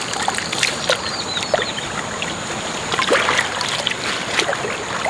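Shallow floodwater trickling through grass, with small splashes and crinkles of a plastic bag as hands work in the water.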